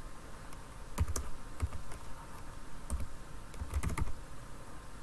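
Typing on a computer keyboard: scattered keystrokes with pauses between them, a few coming in a quick cluster near the end.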